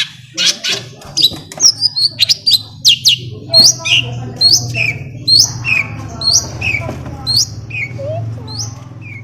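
Long-tailed shrike (cendet) singing loudly: a fast jumble of sharp, high notes, then a short call repeated about twice a second from about five seconds in, over a steady low hum.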